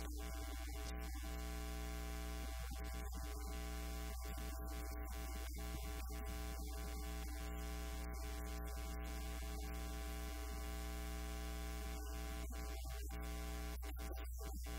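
Steady electrical mains hum and buzz from a faulty sound feed, a loud low drone with a ladder of constant overtones above it that swamps the recording.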